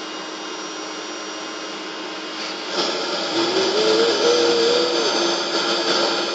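Household vacuum cleaner running steadily. It gets louder about two and a half seconds in, and a wavering tone rises over it for a couple of seconds in the middle.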